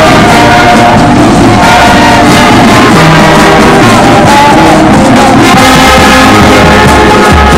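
Marching brass band playing, with trombones and trumpets to the fore, loud and continuous.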